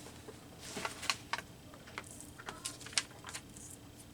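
Scattered light taps, clicks and rustles of a book and paper craft materials being handled and set down on a table, with about half a dozen sharp clicks, the loudest about three seconds in.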